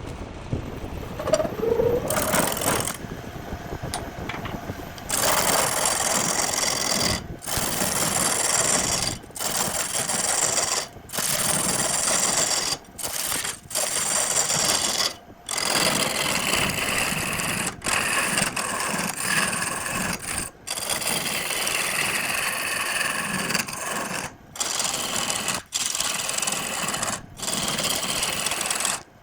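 Rattling machine noise in short segments, cut off abruptly every second or two, with a faint whine that slides down in pitch in places.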